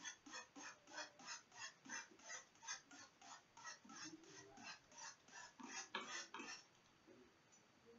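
Hand-held trigger spray bottle misting a tarantula enclosure: a quick run of short sprays, about three a second, that stops about six and a half seconds in.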